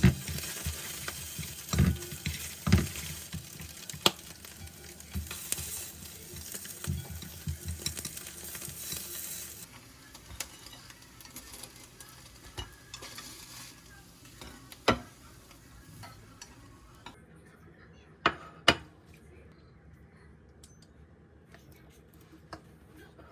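Food sizzling in a frying pan while a utensil clinks and scrapes against the pan. The sizzle dies away about ten seconds in, leaving a few scattered knocks, two of them close together in the latter half.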